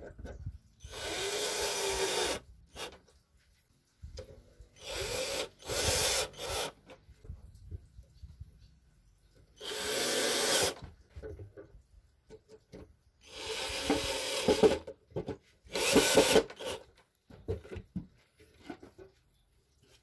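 12-volt INGCO cordless drill driving screws through concealed-hinge mounting plates into plywood, in about six short runs of a second or so each with pauses between them.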